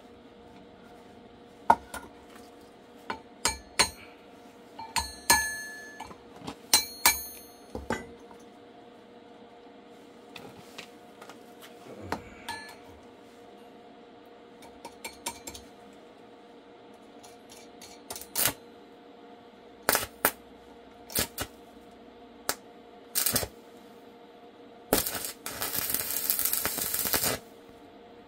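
Metal objects clinking and clanking at irregular intervals, a few ringing briefly, over a faint steady hum; near the end a burst of hissing noise lasts about two seconds.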